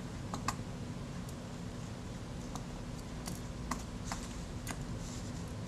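Faint, scattered light clicks of small metal camera parts and tools being handled, about eight over a few seconds, over a steady low hum.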